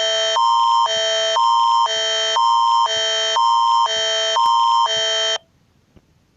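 Emergency alert attention tone: a loud, harsh two-tone electronic alarm that alternates between a low and a high pitch about twice a second, signalling a new emergency alert. It cuts off abruptly about five seconds in, leaving faint ticks about once a second.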